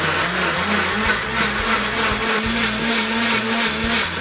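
Hamilton Beach professional blender running at full speed on its hot-soup program, blending carrots and stock into a smooth soup: a loud, steady motor and whirring hum.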